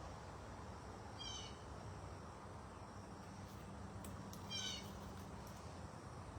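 Two short, high mewing calls, each slightly falling in pitch, about three seconds apart, over a faint steady background hum.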